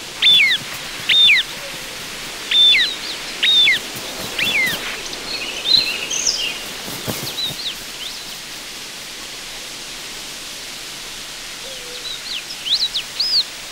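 Hen harriers calling around a prey hand-over in flight: a series of loud, short whistled notes, each falling sharply in pitch. They come about one a second at first and return as two or three more near the end, over a steady outdoor hiss.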